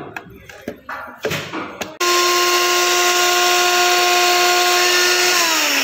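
A 900-watt NutriBullet personal blender grinding a few peppercorns and a cardamom pod. A few light knocks come as the cup is fitted, then the motor starts suddenly about two seconds in and runs at a steady pitch. Near the end it begins to wind down, falling in pitch.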